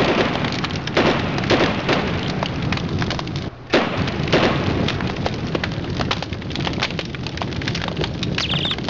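Loud, dense crackling and popping noise that drops out for a moment about three and a half seconds in, then goes on as before.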